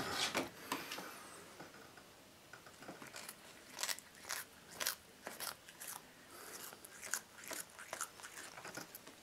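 Domestic cat chewing a fleshy green house-plant leaf: short crisp crunching bites, about two a second, starting about three seconds in.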